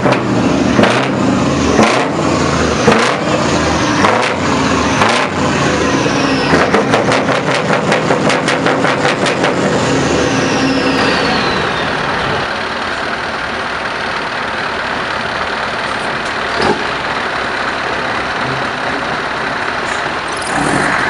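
Scania 143H truck's V8 diesel engine through a loud custom exhaust, revved in sharp blips about once a second, each followed by a falling whistle. A fast run of short blips follows, then a long falling whistle as it settles into a steady, quieter idle.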